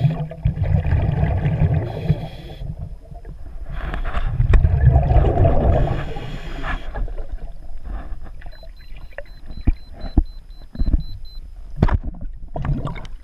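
Scuba regulator exhalations heard underwater: two long rushes of bubbling exhaled air, then scattered knocks and clicks. In the middle, a faint rapid beeping runs for about three seconds, about four beeps a second.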